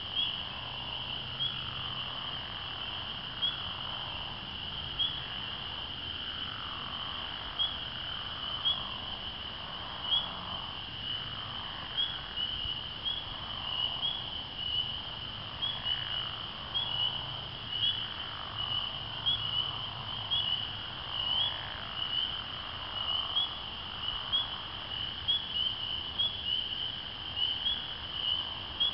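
A night chorus of spring peepers: a steady high ringing of many overlapping peeps, with single loud peeps standing out about once a second and more often toward the end. Beneath it are lower frog calls that sweep downward in pitch.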